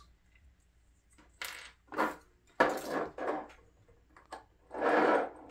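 Light clicks and clinks of small plastic model parts and a glass cement bottle being handled and set down on a tabletop, ending with a longer rasp as the bottle's screw cap is turned off.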